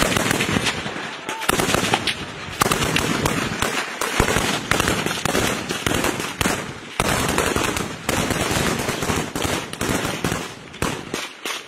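Sustained gunfire: many sharp shots in quick succession, including bursts of automatic weapon fire.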